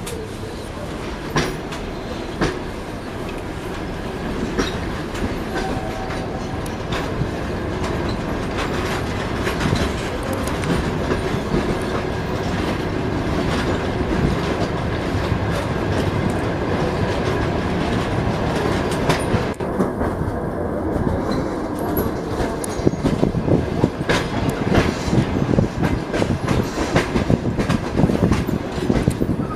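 Passenger train carriage wheels clattering over rail joints, heard from inside the carriage. The clatter starts with a few separate knocks and grows louder and more frequent as the train picks up speed.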